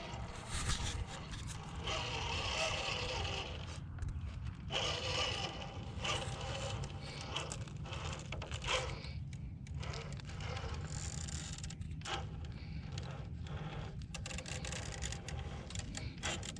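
Traxxas TRX-4 Sport RC crawler working over terrain: its suspension creaking, with irregular scraping and rubbing sounds over a steady low rumble.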